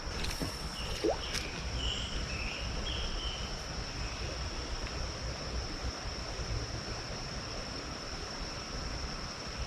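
Creek water running steadily under a constant high insect trill, with a few short high chirps in the first few seconds.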